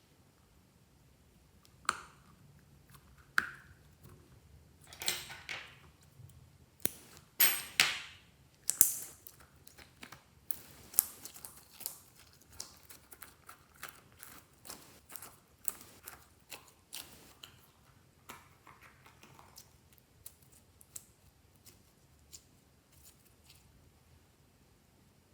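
Slime being mixed and squeezed by hand with random objects worked into it, making sticky clicks and pops. A few louder, longer crackling bursts come about a third of the way in, then lighter clicks follow, thinning out near the end.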